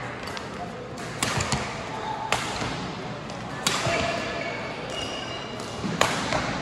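Badminton rally: several sharp racket strikes on a shuttlecock a second or two apart, the loudest about six seconds in, with a few short squeaks of court shoes, over the murmur of voices in a large hall.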